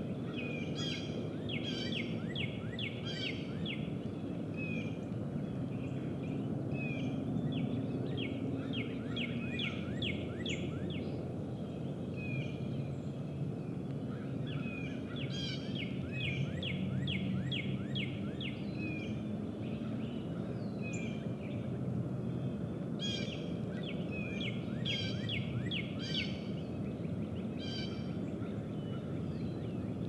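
Wild songbirds singing. Runs of quick, repeated down-slurred whistled notes last a second or two and recur every few seconds, over a steady low rumble.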